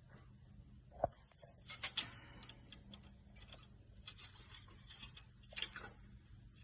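Scattered light clicks and short bursts of rustling and hissing from handling things at the engine bay while the oil is topped up, over a faint steady hum.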